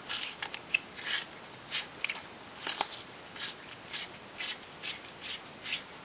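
Olight M20 Warrior flashlight's tail cap being screwed onto the body by hand: a run of short rasping scrapes from the threads, about two a second, one per twist of the fingers.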